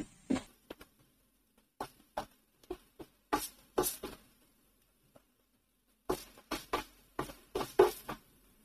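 Wooden spatula scraping and knocking against a non-stick frying pan while stirring sautéed onions and tomatoes: irregular short strokes in clusters, with a pause of nearly two seconds midway.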